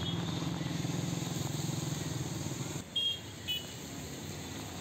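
A vehicle engine idling steadily close by, a low even hum. About three seconds in it drops away to quieter road hiss, broken by two short high chirps.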